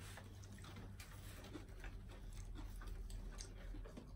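Quiet eating sounds of several people: chewing, lip smacks and fingers picking at fried chicken and rice, heard as a scatter of small clicks over a steady low hum.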